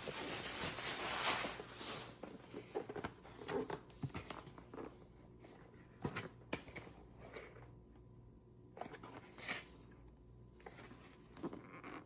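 Plastic and paper packaging rustling and crinkling as a keyboard box is unpacked, thinning out after about two seconds into scattered clicks, taps and short rustles of handling.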